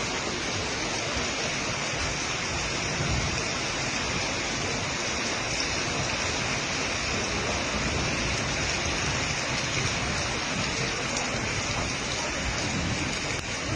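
Storm water: a steady, even rush of heavy rain and running water.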